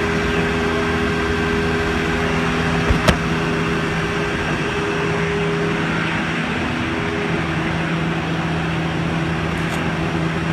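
Masterwood 12.25 CNC nesting machine running with a steady mechanical hum made of several steady low tones, with one sharp click about three seconds in.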